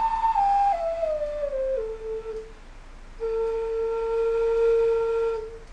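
Homemade CNC-cut wooden Native American flute playing a scale downward note by note, then, after a short breath, holding one long low note. Its sound holes have just been enlarged with a hot burning tool, and it is sounding a whole lot better.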